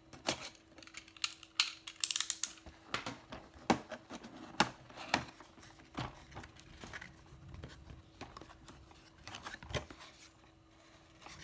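Packing tape being cut on a cardboard shipping box, then the flaps opened and the boxed game pulled out: irregular clicks, snips and rustling of cardboard and tape, with a denser run of rustling about two seconds in.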